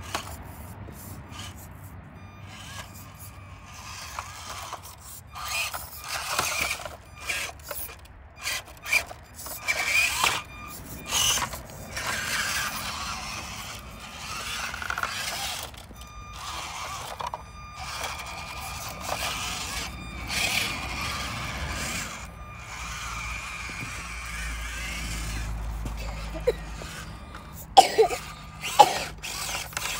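Miniature RC rock crawler's electric motor and gears whining in short, stop-start bursts, with tyres scraping over granite rock. Near the end come two sharp knocks as the truck tumbles onto its side among the stones.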